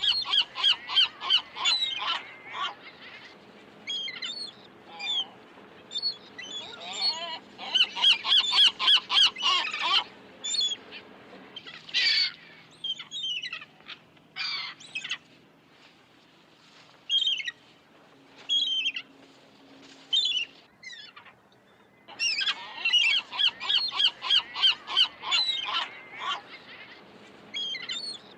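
Seagulls calling. Bouts of rapid repeated calls, several a second, come at the start, around eight to ten seconds in and again from about twenty-two seconds, with single longer calls in between.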